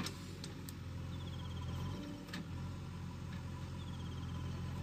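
JCB backhoe loader's diesel engine running steadily under load, with a few light clicks and, twice, a short falling trill of high chirps.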